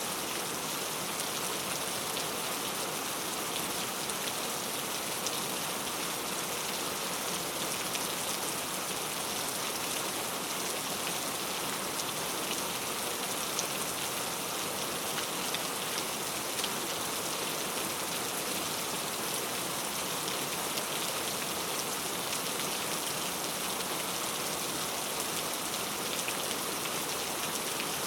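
Steady rain falling, a dense even hiss with scattered raindrop patter.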